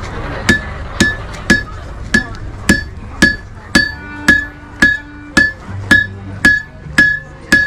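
Blacksmith's hammer striking a horseshoe on an anvil in a steady rhythm, about two blows a second, each blow with a short bright ring.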